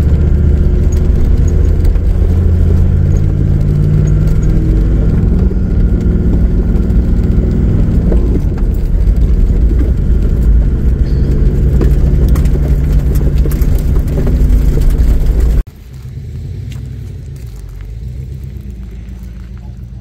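Toyota LandCruiser driving on a rough dirt track, heard from its bonnet: a loud, steady rumble of engine, tyres and wind, with scattered knocks from the rough surface. About three-quarters of the way through it cuts off suddenly to a much quieter steady low rumble.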